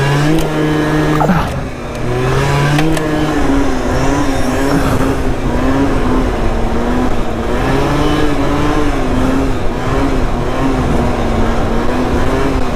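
MBK Booster 50cc two-stroke scooter engine running at high revs while ridden, its pitch wavering up and down as the throttle is worked.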